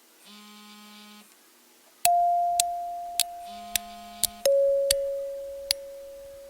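Background music: a short buzzy synth note, then held keyboard notes that fade and step down in pitch, over a light ticking beat about twice a second.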